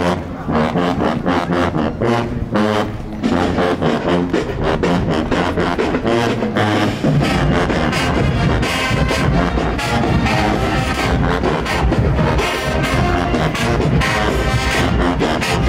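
Marching band playing as it marches: brass and sousaphones over a steady drum beat.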